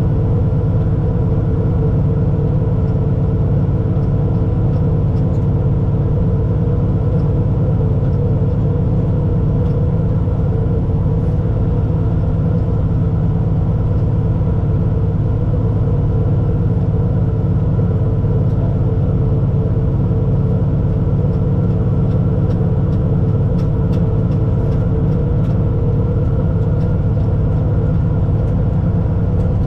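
Allis-Chalmers 7095 tractor's diesel engine running steadily under load while pulling a forage harvester through hay. It is heard from inside a cab lined with two layers of sound-deadening mat.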